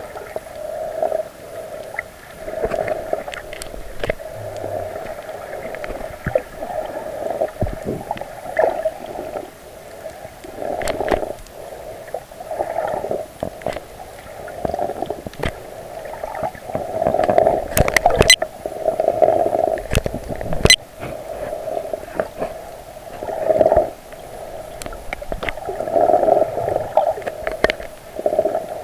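Muffled water sound recorded underwater just below the surface: irregular surges of sloshing and gurgling, with scattered sharp clicks and knocks, the loudest of them around two-thirds of the way through.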